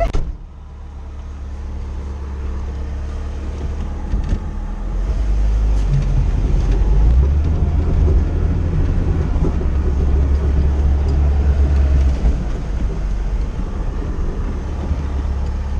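Classic Lada Zhiguli heard from inside the cabin, engine and road noise under way as it pulls away and gathers speed. The rumble grows louder over the first several seconds, stays high, and eases off about twelve seconds in.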